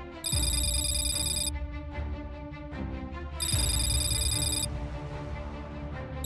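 Background music with a deep, steady bass, overlaid by a ringing telephone: bursts of electronic ringing about a second long, repeating every three seconds or so.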